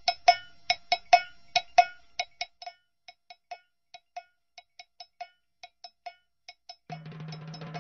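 A run of short, bell-like percussive taps with a clear ringing pitch, about three a second. They are loudest at first and grow fainter and more uneven after about two seconds. A faint low hum comes in about seven seconds in.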